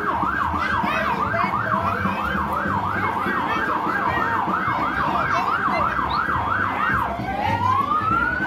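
Emergency vehicle siren in its fast yelp mode, warbling up and down about three times a second. About seven seconds in it switches to a slow rising wail.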